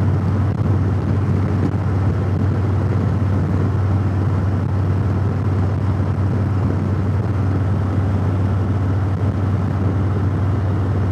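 Cruiser motorcycle riding at steady highway speed: an even low engine drone mixed with wind and road noise, heard from the rider's helmet.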